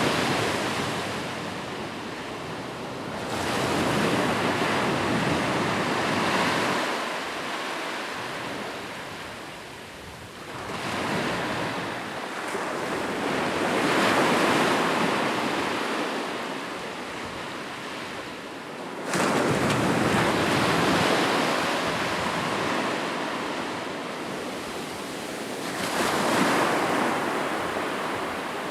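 Ocean surf on a shoreline: waves break and wash in and out, swelling and fading every few seconds, with one sharper, louder break about two-thirds of the way through.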